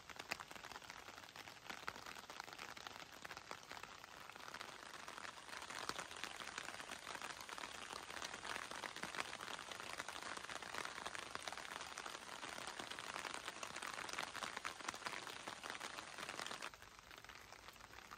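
Light rain pattering, a dense fine crackle of drops. It grows louder about six seconds in and drops off sharply near the end.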